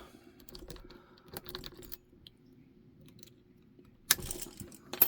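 Light metallic clicks and rattles of a straight piece of metal being worked in a keyed wafer hasp lock, the small metal parts knocking together. Scattered ticks at first, a quiet pause, then a louder burst of rattling about four seconds in and another near the end.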